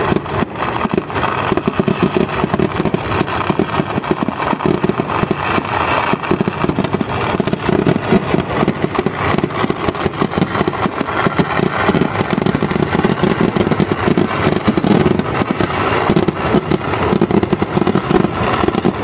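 Kerala temple-festival fireworks (vedikkettu) in full barrage: a dense, unbroken rattle of firecracker and aerial-shell blasts, many a second.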